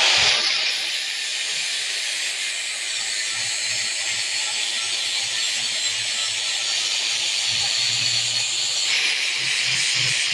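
Angle grinder with an abrasive disc grinding the steel jaw of a pair of blacksmith tongs: a loud, steady hissing grind over a low motor hum. The tone of the grind changes about nine seconds in.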